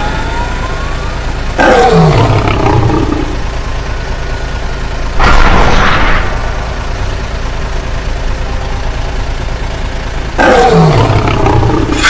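Monster roar sound effects: two loud roars that fall in pitch, about nine seconds apart, with a hissing screech between them, over a steady engine rumble.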